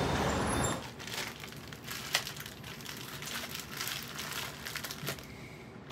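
Crinkling and crackling of plastic snack packaging being handled and turned over, in small scattered bursts. For the first moment, city street traffic noise is heard before it cuts off.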